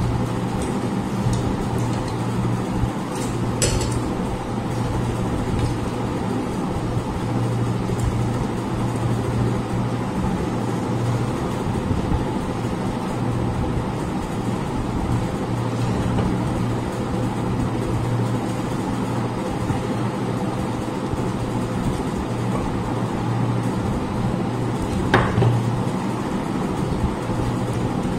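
A steady low machine hum, like a fan or appliance motor running, with a few light clicks about three seconds in and again near the end.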